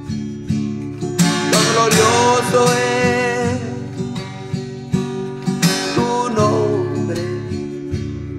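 Instrumental break in a worship song: strummed acoustic guitar keeps a steady rhythm, and a held melody line rises over it about a second in and again past the middle.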